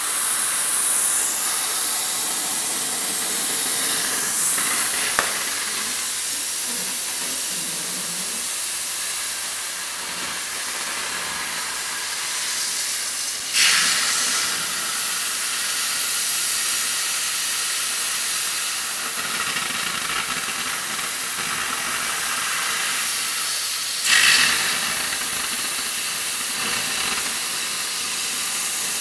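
Oxy-fuel cutting torch on a Victor pattern-tracing machine hissing steadily as its oxygen jet cuts through 5/8-inch steel plate. Twice the hiss jumps to a sudden louder rush, near the middle and again about five seconds before the end.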